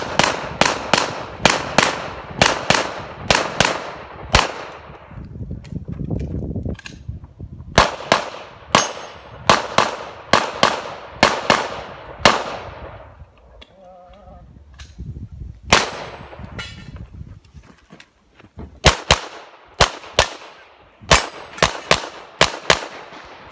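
A pistol fired in rapid strings, several shots a second. There are two short pauses between strings while the shooter moves to the next position.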